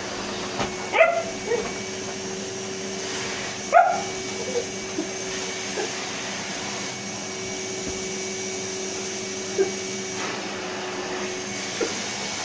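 Henry canister vacuum cleaner running steadily, with a dog giving two short barks, about a second in and again near four seconds in.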